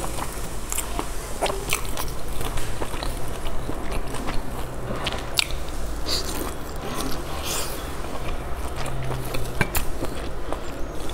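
Close-up eating sounds: biting into and chewing pan-fried dumplings, with wet mouth noises and many short crunchy clicks.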